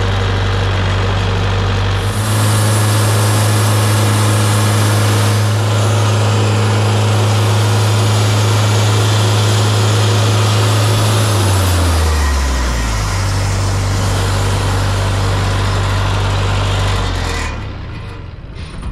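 Wood-Mizer LT50 sawmill running under load, its engine driving the band blade through a heavy redwood log with a steady hiss of cutting. The engine note steps up about two seconds in, dips briefly and recovers about two-thirds of the way through, and drops off near the end.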